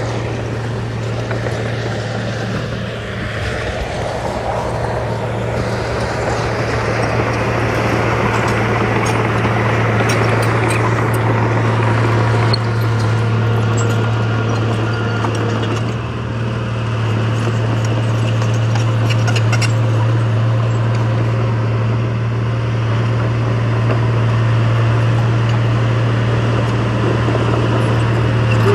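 Diesel engine of heavy earthmoving equipment working steadily, a constant low hum with a dip about sixteen seconds in, with light clicking and rattling over it in the middle.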